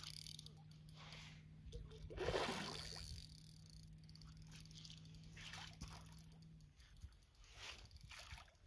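A hooked lightning trout (golden rainbow trout) thrashing at the surface in shallow water, one splash about two seconds in that fades over about a second, then fainter small splashes as it is drawn toward shore.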